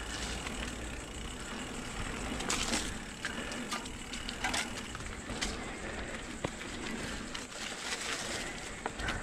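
Mountain bike tyres rolling fast over dry, dusty dirt and leaf litter, with the rattle of the bike and sharp knocks as it hits bumps on the descent.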